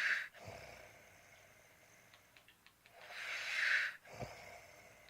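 Slow snoring breaths during sleep: a breathy rush swells to a peak and is followed by a short low snort, once just after the start and again about four seconds later.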